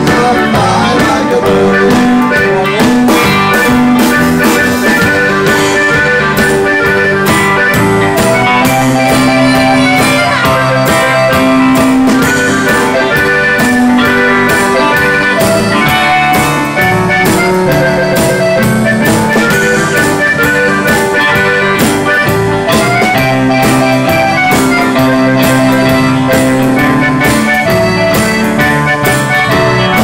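Live band playing a song on electric guitar, bass guitar and drum kit, with a steady beat; an instrumental passage without singing.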